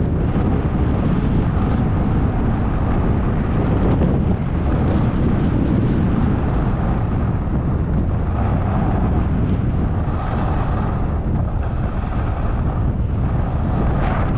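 Steady wind rush buffeting a helmet-mounted camera's microphone as a skier descends a groomed piste, loud and low.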